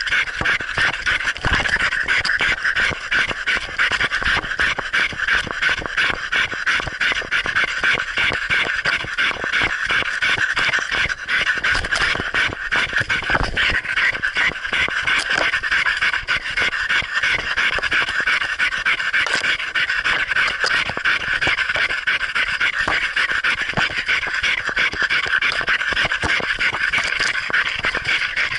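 A dog panting hard and fast right at the microphone, picked up by a camera mounted on its own muzzle, the breaths coming in a quick, steady, unbroken rhythm.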